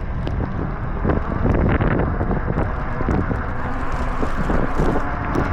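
Strong wind buffeting the microphone while riding an e-bike: a loud, steady, rumbling rush of noise.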